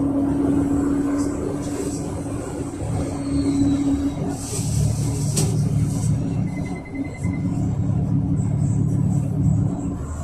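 Inside a Yutong ZK6116HG city bus on the move: the Yuchai YC6G260N natural-gas engine and the road make a steady low rumble, with a steady hum that fades and returns. A brief hiss comes about four and a half seconds in, and a short high electronic beeping about halfway through.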